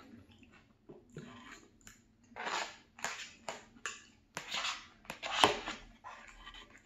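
Close-up chewing of a chicken and vegetable stir fry: a run of short, wet, noisy chews with pauses between, and a sharp click of cutlery or dish about five seconds in.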